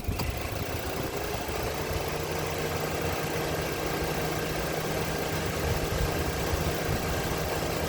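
Mitsubishi Xpander's engine idling as the air conditioning is switched on, loading the charging system: a click right at the start, then a steadier, louder running sound with a steady low hum settling in about a second and a half in.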